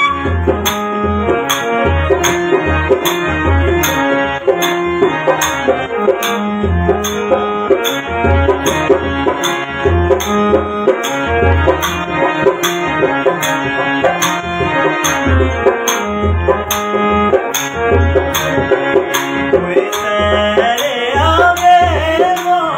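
Instrumental passage of Dogri folk music: keyboard melody and chords over a steady tabla-style drum rhythm. A man's singing voice comes in near the end.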